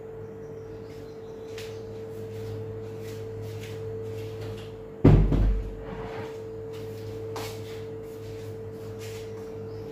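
A steady hum with a few faint ticks, and one heavy thump about five seconds in, like a door or cupboard being shut.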